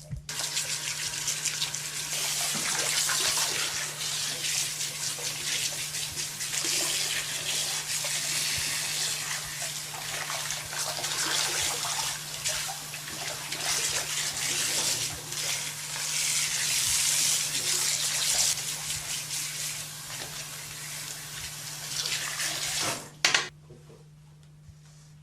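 Running water from a salon wash-basin tap or spray hose splashing unevenly over hair, over a steady low electrical hum. The water is shut off with a sharp click near the end.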